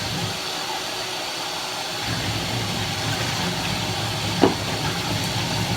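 Steady hiss of running water from a bath tap or sprayer while a dog is rinsed in the tub, with a short sharp sound about four and a half seconds in.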